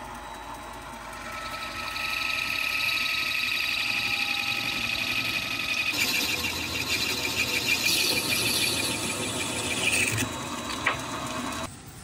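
Metal lathe running while a thin cutting tool bores into the end of a spinning white ring blank, giving a high-pitched steady tone over the machine's noise. The sound stops suddenly near the end.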